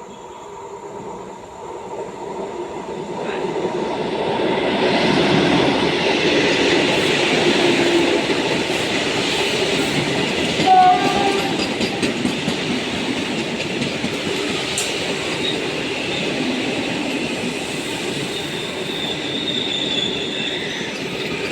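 An Indian Railways train approaching and rolling past, its coaches running over the rails. The sound builds over the first five seconds, then holds steady, with a brief louder moment about halfway through.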